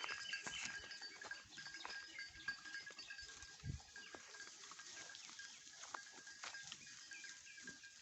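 A herd of goats moving through forest undergrowth: faint rustling and scattered small cracks and clicks of hooves and twigs, under a steady high thin tone.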